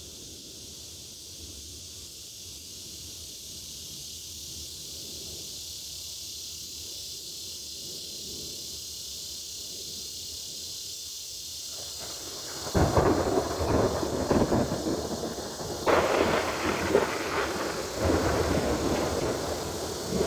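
Cicadas droning steadily in a high, even buzz. About two-thirds of the way in, thunder from an approaching storm breaks over it in several loud rumbling rolls.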